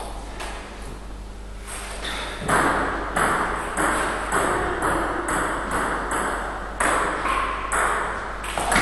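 Table tennis rally: the ball clicking back and forth off the paddles and the table, about two hits a second, each with a short echo in a large hall, starting about two and a half seconds in.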